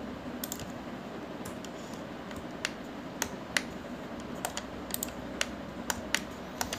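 Computer keyboard keys and mouse buttons clicking: a dozen or so single, irregularly spaced clicks over a faint steady background noise.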